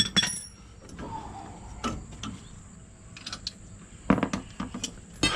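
Metal hand tools clanking and clicking as they are handled: a few sharp knocks at the start, then scattered clinks about two, four and five seconds in.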